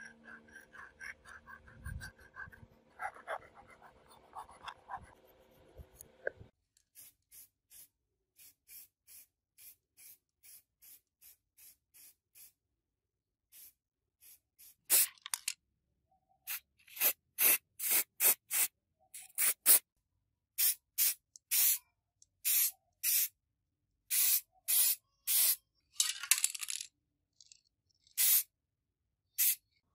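Spray paint hissing out in many short bursts onto a model car body, faint at first and loud in the second half. Before that, a hand file rasps faintly along the model's door edge.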